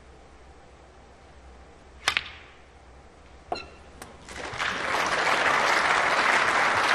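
Snooker shot: a sharp double click as the cue strikes the cue ball and the cue ball hits the object ball, a second ball knock about a second and a half later, then the audience applauding the pot.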